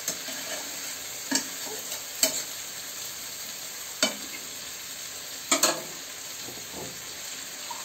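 Spiced mutton sizzling as it fries in a kadai, being stirred and scraped with a metal spatula, with a few sharp clinks of the spatula on metal. The meat is at the kosha stage, being fried down until the oil separates.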